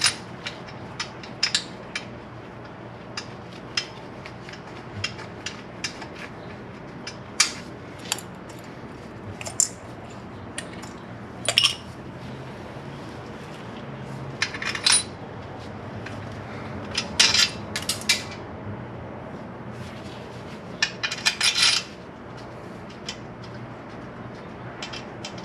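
Light metallic clinks and scrapes of steel intake manifold studs being threaded in by hand, with a few short clusters of rapid clicking.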